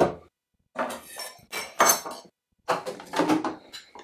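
A metal spoon stirring chopped salsa in olive oil in a ceramic bowl, clinking and scraping against the bowl in three short bouts.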